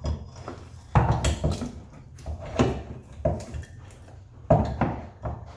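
Hard knocks and clunks of the jet pump assembly being handled and worked onto the drive shaft's spindle, about half a dozen sharp strikes with the loudest about a second in and again near the end.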